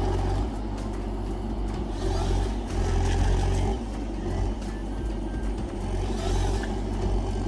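Forestry harvester's engine running, a steady low rumble that swells a little partway through and then eases.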